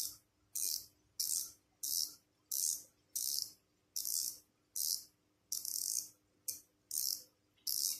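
Ultralight spinning reel ratcheting as it is turned by hand in repeated strokes to unscrew a part until it comes off: about twelve short bursts of fast clicking, each about half a second long, with brief pauses between strokes.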